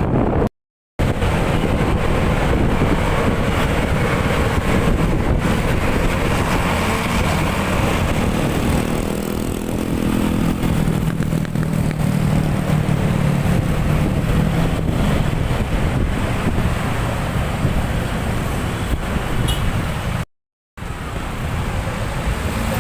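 Vehicles on a road: steady engine and road noise, cutting out briefly twice, once just after the start and once near the end.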